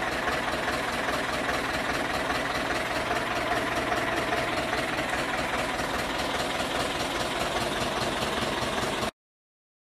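Ursus C-360 tractor's four-cylinder diesel engine idling steadily. The sound cuts off abruptly about nine seconds in.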